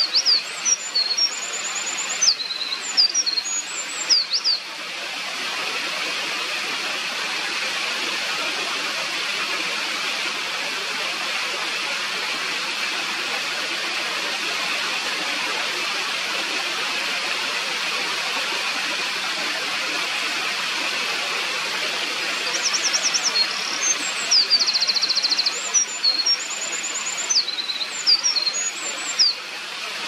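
Eurasian wren singing two long, rapid songs of high trills and sharp notes, one at the start and one beginning about two-thirds of the way through, over the steady rush of a mountain stream.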